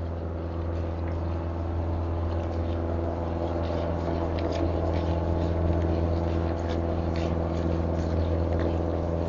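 A motorboat engine running steadily, growing slowly a little louder, with faint ticks and small water splashes over it.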